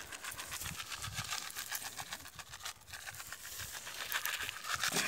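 Granular 20-20 zinc fertilizer scattered by hand onto dry, stony soil: a light, rapid pattering of many small ticks, with a few soft low thuds.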